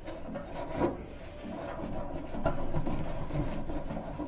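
A rag scrubbed back and forth on a dryer's metal drum-roller shaft, rubbing off sticky residue from WD-40 or similar that was used as grease. The scrubbing is irregular, with a sharper stroke about a second in.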